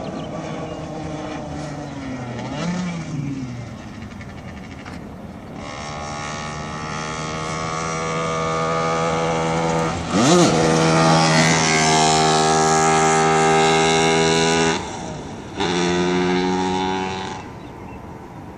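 Shifter kart's two-stroke engine running hard at steady high revs, growing louder as it comes closer and loudest from about ten seconds in. The engine note cuts out briefly about fifteen seconds in, comes back for a couple of seconds, then fades near the end.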